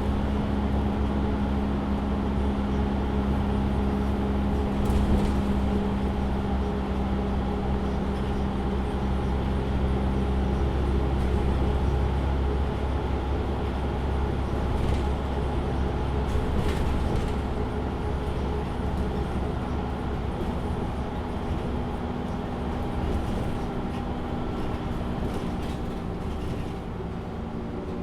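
Interior sound of a MAN Lion's City city bus: the engine and drivetrain run steadily with a low rumble and a steady drone, with a few short rattles or clicks. The sound gets slightly quieter near the end.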